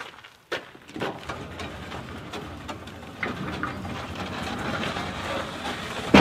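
Steel target-carrier frame in a rifle range's target pit rattling and scraping as it is pulled down its track, growing slowly louder and ending in a loud clank.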